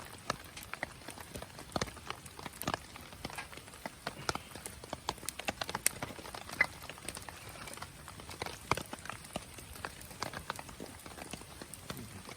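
Wood fire crackling in a Picogrill fire pit: irregular sharp snaps and pops, several a second, over a faint steady hiss.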